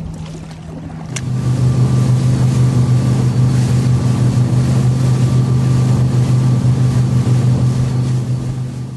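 Motorboat engine humming steadily with water noise; about a second in it cuts to the boat under way, a louder, lower steady engine drone over rushing water, fading out near the end.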